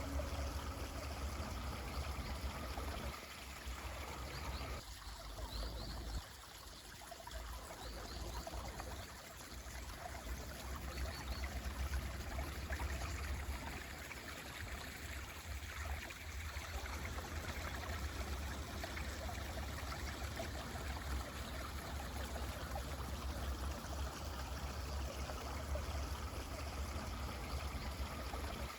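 Mountain stream flowing steadily, a soft, even water murmur with a deep low rumble. The last shakuhachi note dies away at the very start, and a few faint high chirps come in the first third.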